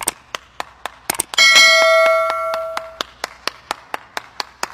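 Fast, even hand clapping at about six claps a second, with a bell-like notification ding about a second and a half in that rings out and fades over about a second and a half.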